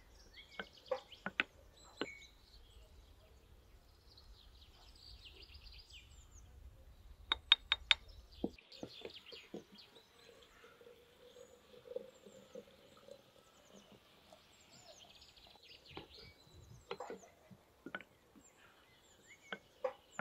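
Wooden spoon knocking against a glass jar as fruit and herbs are stirred and pressed down inside it, in scattered sharp knocks with a quick cluster of the loudest about halfway through. Water is then poured into the jar from a jug for several seconds, with small bird chirps in the background.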